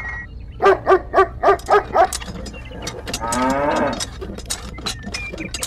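Cow mooing: a quick run of six short, evenly spaced calls, then one longer, lower moo about three seconds in, over scattered light clicks.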